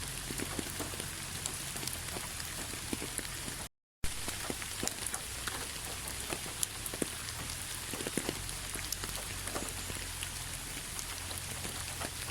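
Steady rainfall, a constant hiss with many individual drops pattering and ticking close by. About a third of the way in, the sound cuts out completely for a fraction of a second and then resumes.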